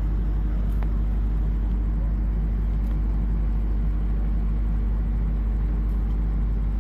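Steady low engine-like drone with a constant hum, unchanging throughout.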